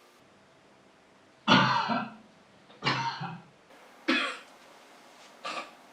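A person coughing four times, each cough short and about a second and a half apart, the first the loudest.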